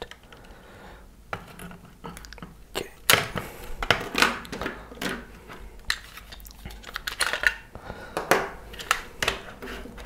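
Hard plastic parts of a FlySky GT3C radio-control transmitter clicking and knocking irregularly as its circuit board and housing are handled and set down on a wooden table.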